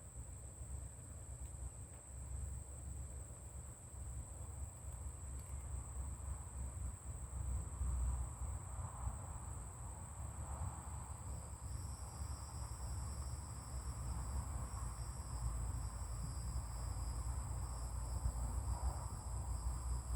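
Insects, crickets or similar, chirring in a steady high-pitched drone, with a second, lower-pitched insect drone joining about twelve seconds in, over a low rumble.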